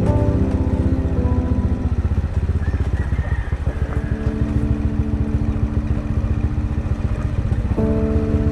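Motorcycle engine running steadily, with background music over it.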